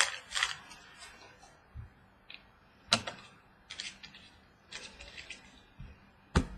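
Trading cards and their packaging being handled: a handful of sharp, irregular clicks and snaps with light rustling between them.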